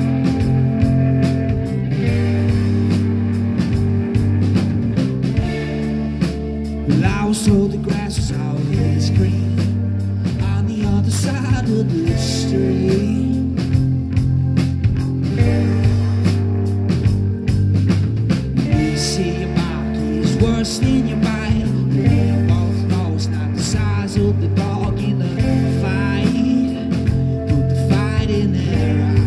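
Rock band playing live: electric guitar, bass guitar and drum kit, with a male lead singer's vocals coming in several times over the instruments.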